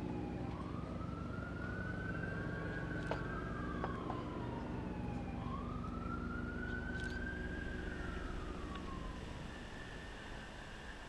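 An emergency vehicle siren wailing in slow cycles, its pitch rising and falling twice, over a low steady rumble.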